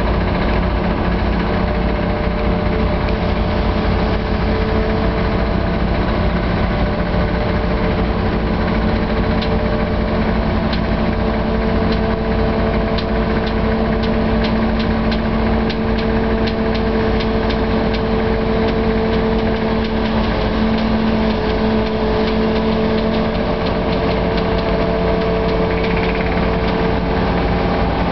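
Diesel engine of a Goldhofer multi-axle heavy-haul transporter running steadily with a constant hum as the rig creeps along under load. A run of faint clicks comes about halfway through.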